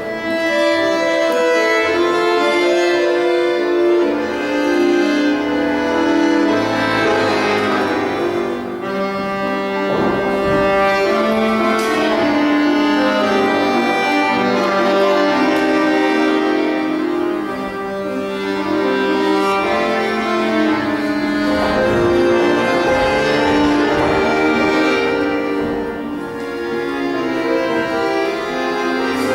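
Accordion playing a steady, dance-like melody of sustained notes and chords, typical accompaniment for folk-stage dance exercises at the barre; a few faint knocks sound under it.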